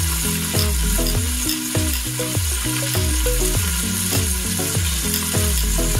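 Chicken sizzling without oil in a lidded Saladmaster electric skillet: a steady hiss with small crackles. Background music with a low, deep beat about twice a second plays under it.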